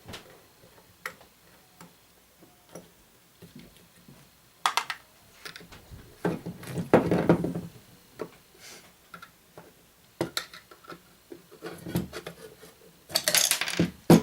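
Irregular clicks, knocks and scraping from hands and tools working on a small metronome's case and parts as it is taken apart, with a longer stretch of scraping near the end.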